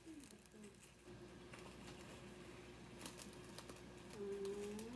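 Pork and beef sizzling on a round metal grill pan over a portable butane stove, quiet with scattered spattering pops. A short hummed voice sound comes near the end.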